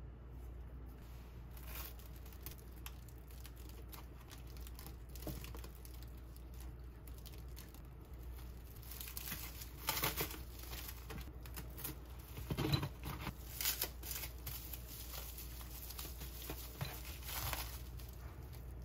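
Plastic cling wrap crinkling and rustling as hands fold it tightly around a thick sandwich, in irregular crackles with a few louder ones about halfway through.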